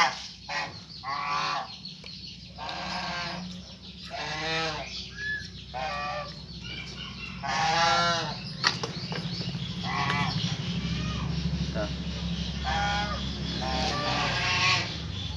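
Geese honking, many short calls repeated over and over every second or so.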